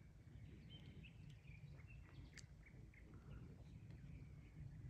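Near silence: faint outdoor ambience, a low wind rumble on the microphone with a few faint, short bird chirps.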